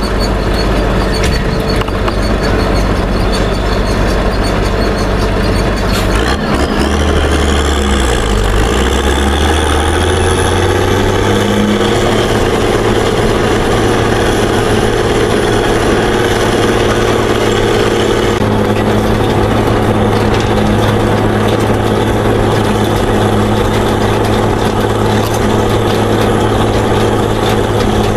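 Zetor 16145 tractor's six-cylinder diesel engine running under load while pulling a grass loader wagon. About six seconds in the revs climb over a few seconds, then hold steady.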